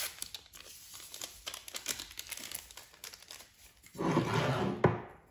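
A small sachet of vanilla sugar crinkling as it is handled and torn open, then shaken out over the batter bowl. A louder rustle comes about four seconds in.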